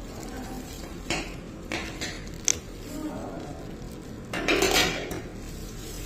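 Steel surgical instruments (forceps and needle holder) clinking as they are handled: a few separate sharp clicks, then a short burst of clattering about four and a half seconds in.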